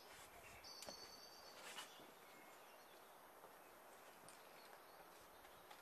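Near silence: faint outdoor ambience, with one short, high bird chirp about a second in and a couple of faint clicks.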